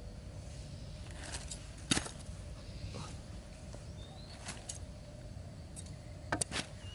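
Small clicks and taps from hands working string at a bamboo snare trap, with a sharp click about two seconds in. Near the end come two quick snips of scissors cutting the string. A faint steady hum runs underneath.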